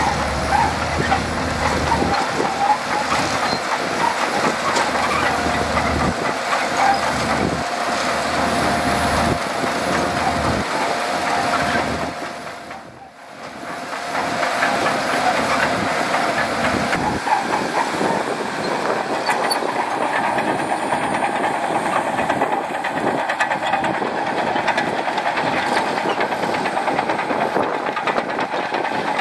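Shantui DH17C2 crawler bulldozer working, its diesel engine running under load with the clatter of its steel tracks. The sound dips briefly about halfway through.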